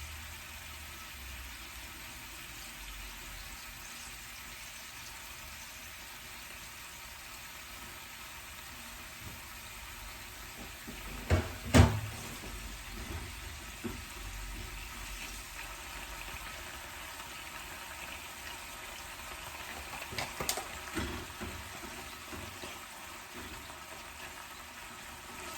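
Food cooking in a pan on the stove, a steady hiss. A few sharp knocks of cookware or utensils come about halfway through, the loudest sounds here, and a few more come near the end.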